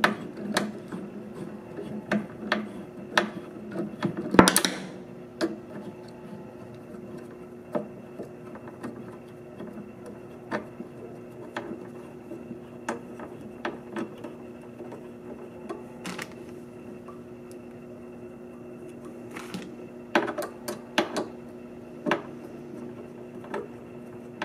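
Hand driver unscrewing a transport bolt from the metal base plate under a centrifuge: irregular clicks and ticks of the tool and bolt turning, with a longer scraping rattle about four and a half seconds in, over a faint steady hum.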